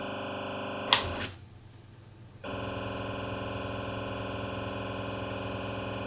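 Demodulated 40 MHz garage door opener transmission heard through SDR receiver software: a steady, buzzy tone. A click comes about a second in, the tone drops out for about a second, then it comes back and holds steady.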